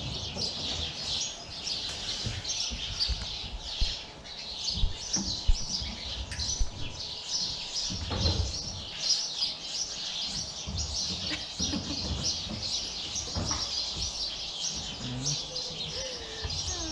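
Many small birds chirping in a dense, unbroken chatter, with scattered low thumps of goat kids moving about in the straw and a short bleat near the end.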